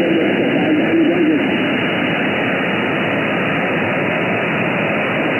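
Shortwave receiver on the 20-metre band in single-sideband mode giving out steady static hiss, dull with no high end because of the sideband filter. A faint, garbled wavering sound comes through the noise in the first second or so.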